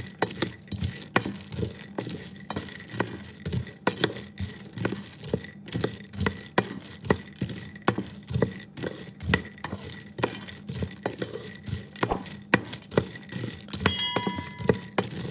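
Raw peanuts being dry-roasted in a pan, stirred and tossed with a spatula in a steady rhythm of about two strokes a second, each stroke a rattle and scrape of nuts on the pan. A brief metallic ring sounds near the end.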